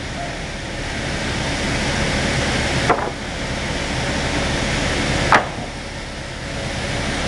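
Automatic reciprocating single-side sawing machine running and cutting timber: a steady loud saw noise with a sharp clack about three seconds in and again about five seconds in. After each clack the sawing noise dips and then builds up again.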